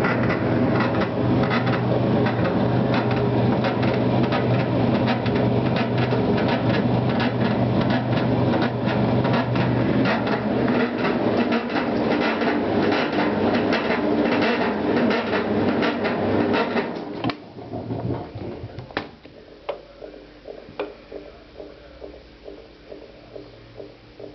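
Maytag Atlantis top-load washer running with a loud, steady mechanical noise, a low hum under rapid clicking. This is the unexplained noise that a gearbox replacement did not cure. About 17 seconds in the noise cuts off abruptly, leaving a quieter hum with soft ticks every half second or so.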